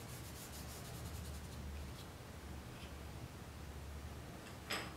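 Faint, quick rubbing strokes of a fingertip smudging charcoal on drawing paper, then a few light ticks and one sharp click near the end.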